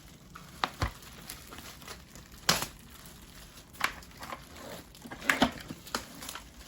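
Plastic packaging crinkling and rustling as it is handled, with scattered sharp clicks and crackles, the loudest about two and a half seconds in and another cluster a little past five seconds.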